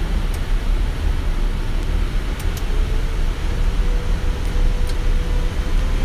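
Steady low rumble and hiss inside the cockpit of a Boeing 777 freighter, with a faint tone that slowly rises in pitch from about halfway through and a few faint clicks.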